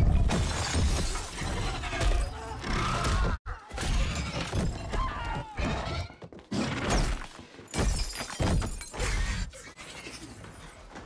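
Film sound effects of glass shattering, with repeated crashes and impacts, over tense score music.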